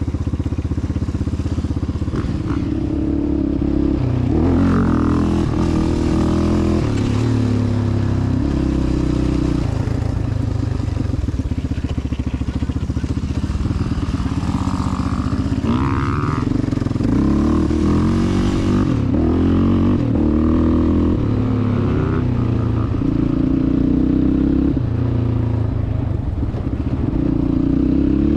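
Yamaha Raptor 700R ATV's single-cylinder four-stroke engine running and revving up and down as it rides, with dirt bike engines nearby.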